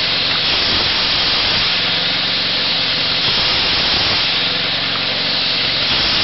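Homemade chainsaw powered by a ZiD engine, running loud and steady with a dense hiss over its engine note.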